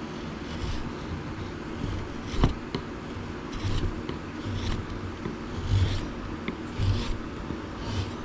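Hand chisel paring shavings off a driftwood wand's handle: short scraping strokes about once a second, with one sharp click about two and a half seconds in.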